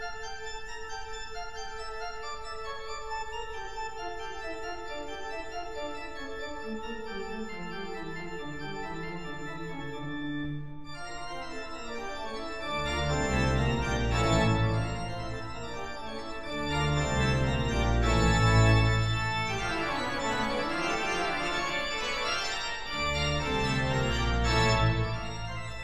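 Background organ music: a held note over a slowly falling line of lower notes, turning fuller and louder with deep bass notes about halfway through.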